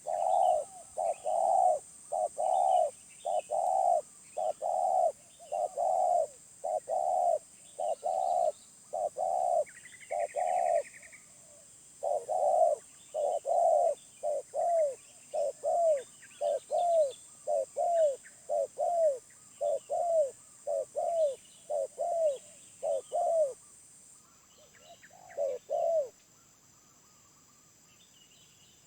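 Spotted dove cooing: a long run of short, deep coos, a little more than one a second, that stops a few seconds before the end. Small birds chirp faintly and a steady high insect hiss runs behind.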